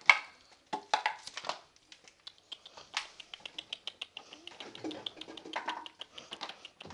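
Pekingese puppies' claws clicking and scrabbling on the floor as they run and play, a quick run of sharp ticks that is densest a few seconds in.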